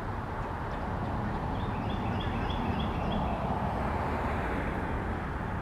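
Steady rumble of distant road traffic, swelling a little in the middle as a vehicle passes. A bird gives a run of five or six short, evenly repeated chirps about two seconds in.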